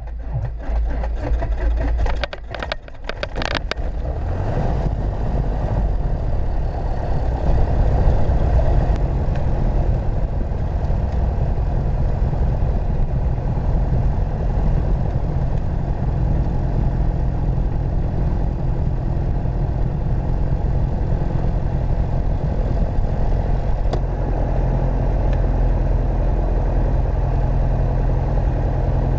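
Piper Archer II's four-cylinder Lycoming O-360 engine starting, heard from inside the cabin: a run of sharp pops about two to three seconds in as it catches, then a steady low idle at taxi power.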